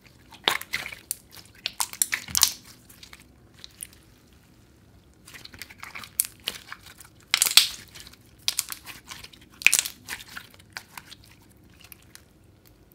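Clear glitter slime squeezed and stretched by hand, making irregular bursts of sticky clicks and pops with quiet gaps between.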